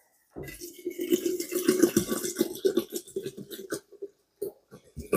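Apple juice pouring from a plastic juice bottle into a glass fermenter jar, gurgling steadily as air glugs back into the bottle. Near the end it breaks up into a few separate glugs and splashes.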